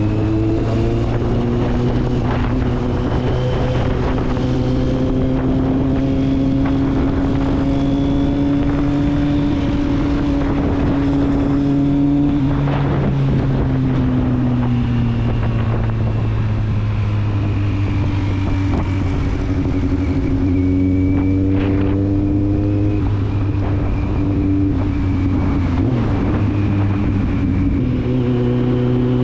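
Kawasaki Z750's inline four-cylinder engine heard through its exhaust, running at fairly steady revs. Its pitch slowly rises and falls, with a few drops in revs along the way.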